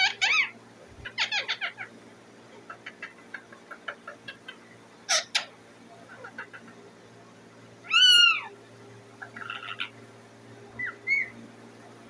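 Rose-ringed parakeet calling, a scattered run of short chattering chirps and squawks, the loudest an arching squawk about eight seconds in. These are its calls to be fed.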